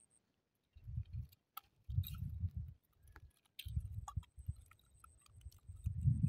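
Low rumbling bursts on the microphone that come and go every second or so, with small scattered clicks and rustles of hands working the hook out of a freshly caught fish's mouth.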